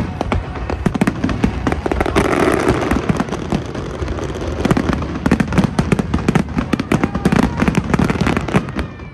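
Fireworks display: a dense, continuous barrage of bangs and crackles, which stops abruptly near the end.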